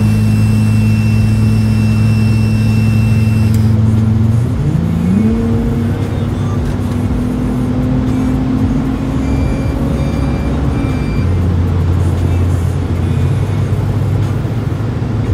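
Lexus IS250's 2.5-litre V6 with the muffler deleted, heard from inside the cabin while driving: a steady exhaust drone that rises in pitch about five seconds in as the car speeds up, climbs slowly, then drops back lower about eleven seconds in.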